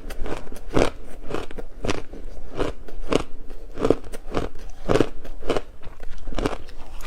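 Matcha ice being bitten and chewed close to the microphone: a steady run of crisp crunches, about three a second.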